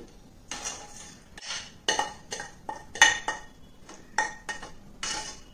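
Spoon scraping and knocking against a metal pan as thick cooked apple jam is scraped out into a bowl: about ten separate scrapes and taps, several leaving the pan ringing briefly, the sharpest about three seconds in.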